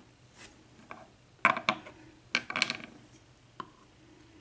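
Small metal lock parts (pins, wafers, cylinder pieces) and tools clicking and rattling as they are handled, in two short clattering bursts about a second apart with a few lighter clicks around them.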